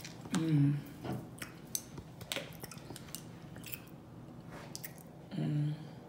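Close-miked chewing with wet mouth clicks and smacks, and two brief hummed vocal sounds, one near the start and one near the end.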